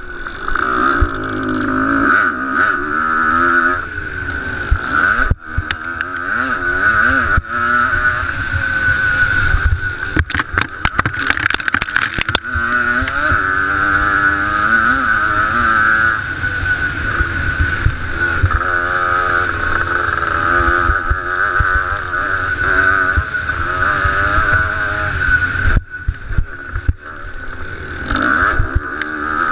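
Motocross bike engine heard from the rider's helmet, revving up and down repeatedly through the gears and corners, with wind on the microphone. A quick run of sharp knocks comes about ten to twelve seconds in.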